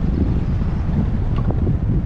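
Wind buffeting the microphone of a camera on a moving car, heard as a steady low rumble, with a couple of faint ticks about one and a half seconds in.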